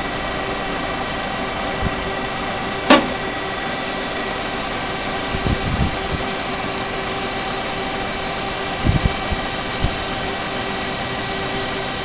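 MTS suction excavator's engine and hydraulic system running steadily as the remote-controlled hydraulic power arm swings out: a continuous hum with several held tones. A single sharp click about three seconds in, and a few short low bumps later on.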